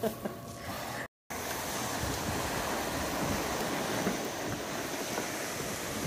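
Steady rushing noise of blizzard wind, starting after a brief break about a second in.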